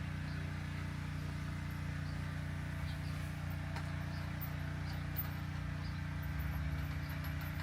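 Steady low electrical hum, with a few faint metallic clicks as the front axle screw, washers and safety hook are fitted to an e-bike's fat-tire wheel.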